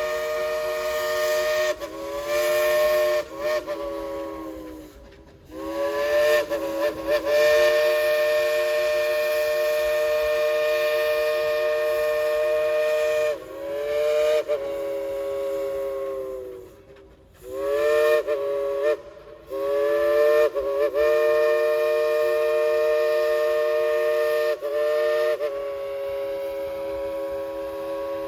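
Coal-fired steam locomotive's chime whistle played by the engineer: a chord of several notes sounded in about five long blasts, the pitch sliding as the valve opens and closes. The last blast near the end is softer.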